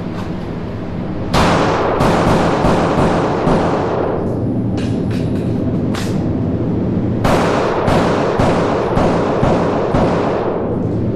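Rapid strings of handgun shots fired during an IDPA stage: a quick run of about ten shots, a pause of just over a second, then another quick run of about seven shots, each shot ringing out briefly.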